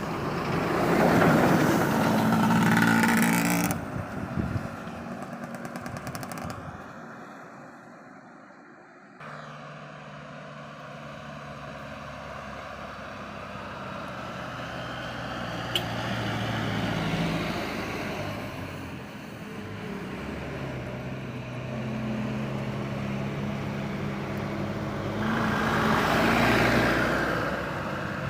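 Heavy road vehicles, trucks and buses, driving past one after another, their engines rising as they approach and fading away. There is a loud pass about a second in, a quieter lull in the middle, and another loud pass near the end.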